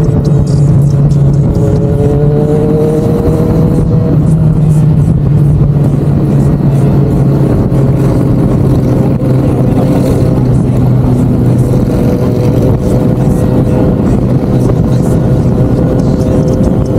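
Motorcycle engine running at a steady cruising speed while riding, with a constant low rumble of wind and road noise.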